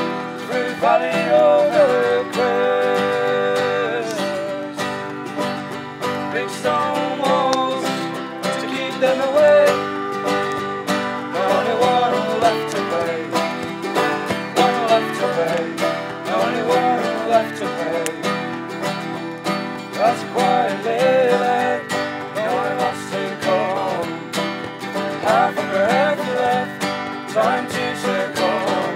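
Folk music: a banjo picked steadily, with voices holding a wordless, wavering melody above it.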